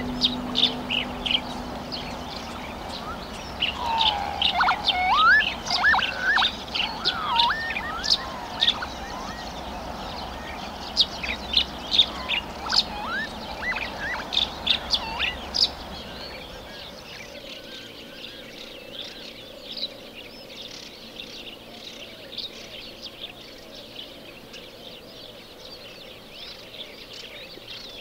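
Wild birds calling at a wetland: many short, sharp chirps with some rising-and-falling whistled calls, over a low wind rumble. After about 16 seconds it turns quieter, with fewer calls.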